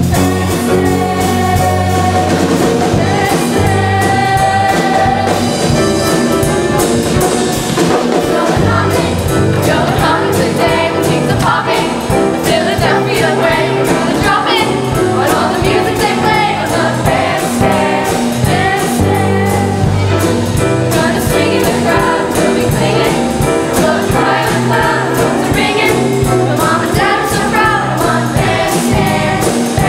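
Children's choir singing an upbeat song together over instrumental accompaniment with a steady beat.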